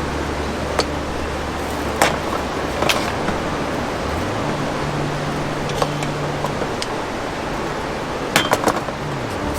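A steady low hum under a scatter of short sharp clicks and clinks; the hum steps up in pitch about four seconds in, and a quick cluster of clicks comes near the end.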